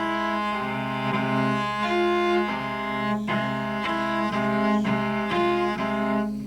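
Solo cello playing a bowed exercise in which triple stops are broken up into double and single stops. A low note is held under upper notes that change about every half second, bowed smoothly and connected.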